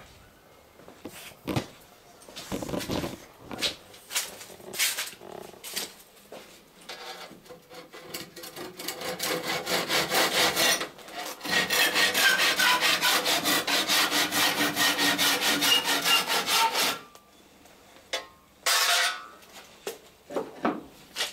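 Handsaw cutting through the end of a wooden clinker plank at the transom, sawing away its half lap. A few knocks of handling come first, then the saw strokes build up, pause briefly and run fast and steady for about six seconds before stopping, with one short burst of strokes shortly after.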